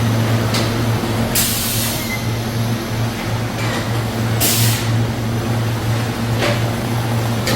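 Tangerine sorting-line machinery running with a steady electrical hum. Two short hisses of air or spray cut in, one about a second and a half in and another about four and a half seconds in.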